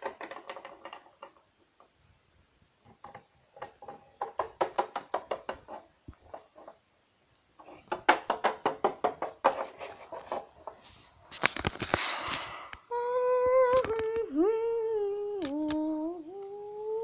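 Small plastic toy figures tapped rapidly against a tabletop in three runs of quick knocks, then a short rustling scrape. For the last few seconds a voice hums a long note that dips and rises in pitch.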